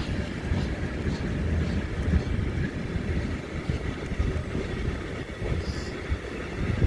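Freight train of tank wagons rolling past, a steady low rumble of steel wheels on the rails.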